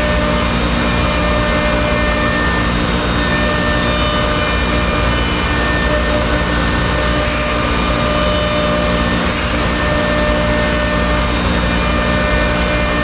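Thermwood M-90 five-axis CNC router spindle cutting MDF: a steady mechanical noise with a constant multi-pitched whine from the spindle and cutter. Brief faint high hisses come four times in the second half.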